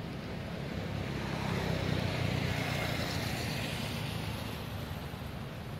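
A motor vehicle passing by, its engine and road noise rising to a peak about two seconds in and then fading away.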